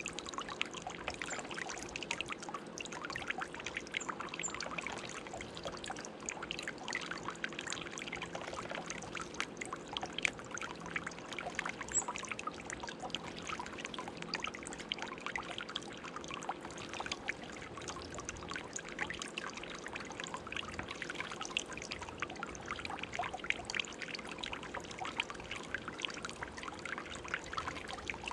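Water steadily trickling and splashing in a garden birdbath fountain, with a chickadee splashing as it bathes, flicking water with its wings.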